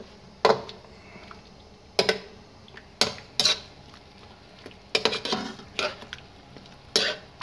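Slotted metal spatula knocking and scraping against a metal karahi as raw chicken pieces are turned in hot butter at the start of frying: about eight sharp, irregular clinks.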